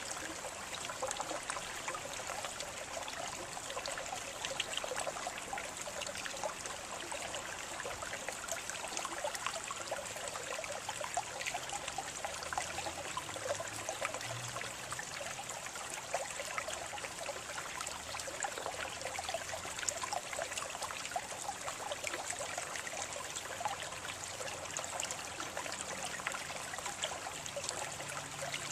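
Water trickling and splashing steadily, a continuous babble of many small droplet splashes with no pauses.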